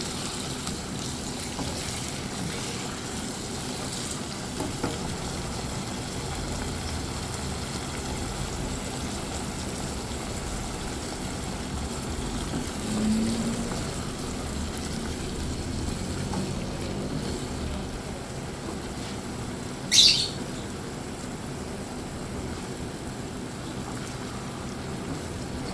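Pan of chicken liver adobo cooking with a steady simmering hiss. About twenty seconds in comes one brief, sharp, high-pitched sound.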